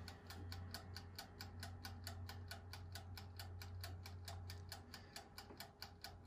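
A toaster oven's mechanical wind-up timer ticking steadily, about five ticks a second, just set to 10 minutes and counting down, with a low steady hum underneath.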